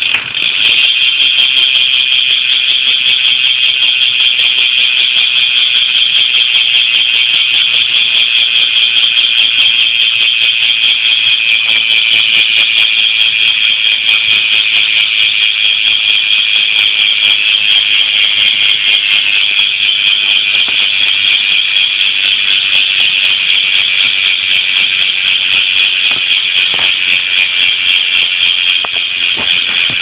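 Rival sealed-bearing BMX rear hub with a 9-tooth driver, its freewheel clicking so fast that it merges into a loud, steady, high-pitched buzz as the wheel spins freely.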